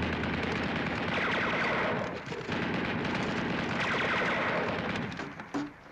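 Rapid, sustained machine-gun fire of a battle scene, with a brief break about two seconds in and another near the end.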